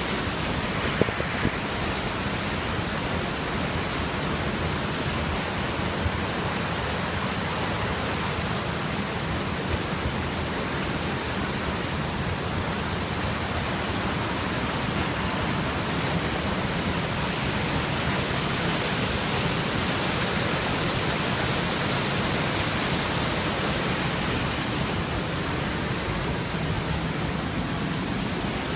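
River water rushing over a weir, a steady roar of noise that grows a little brighter for several seconds past the middle.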